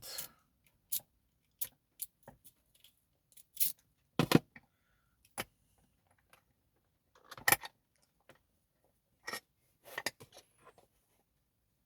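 Light metallic clicks and clinks from an Avocet ABS dimple lock and its keys or picking tools being handled, scattered and irregular, with small clusters about four, seven and a half, and ten seconds in.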